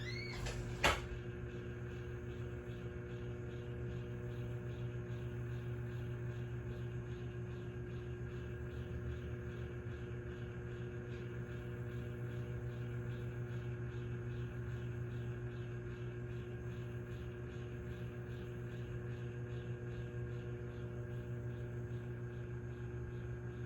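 Microwave oven running with an egg heating inside: a steady electrical hum. Just under a second in there is a brief sound with a rising pitch and a sharp click.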